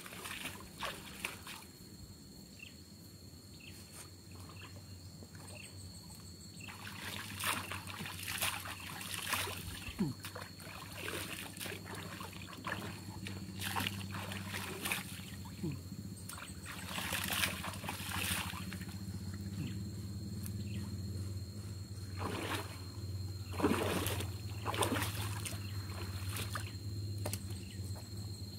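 Hands scooping and splashing water in a shallow stream, in irregular bouts of splashing and dribbling, with a thin steady high tone underneath.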